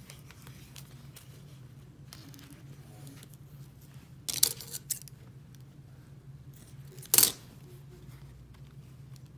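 Kitchen scissors cutting red thread and being handled on a stone countertop: two short sharp noises, the first about four and a half seconds in and a shorter, louder one about seven seconds in, over a steady low hum.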